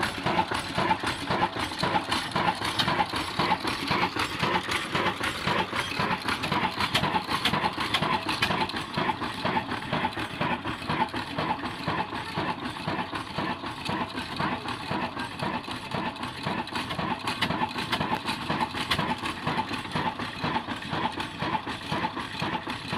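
Old Ruston horizontal single-cylinder diesel engine running steadily, with a fast, even mechanical clatter from the engine and the belt-driven flour mill.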